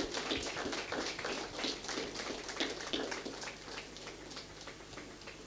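Audience clapping: many separate hand claps, thinning out and fading away over the last second or so.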